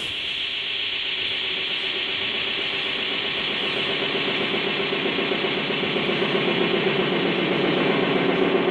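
A steady machine drone with a hiss over it, like a running engine, swelling in loudness and taking on a quick even pulse toward the end.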